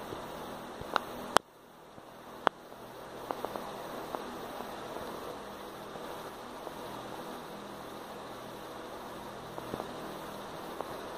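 Steady background hiss and hum, broken by a few sharp clicks in the first four seconds. After the loudest click the hiss drops away suddenly and swells back over about a second.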